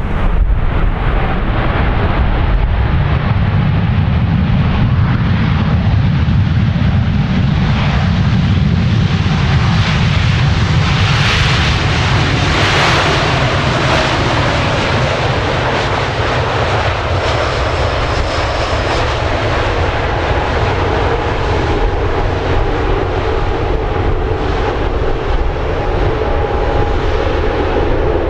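Boeing 787-8 airliner's Rolls-Royce Trent 1000 jet engines running as the aircraft passes close by on the runway: a steady heavy rumble that swells to its loudest, with a rushing hiss, about halfway through, then settles into a steady engine whine.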